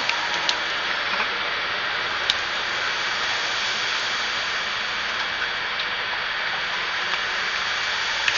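Steady machine noise: an even hiss with a few faint, steady high-pitched whines in it, and a single sharp click a little over two seconds in.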